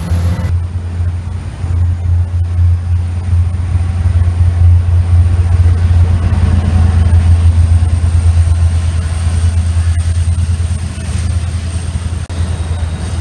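Israel Railways diesel locomotive's engine running, a loud steady low drone that swells to its loudest in the middle and eases near the end.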